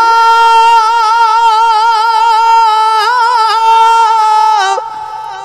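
Man singing a long, high held note of a Punjabi Sufi kalam, with a slight waver and a quick ornamented turn about three seconds in; the note ends shortly before the end.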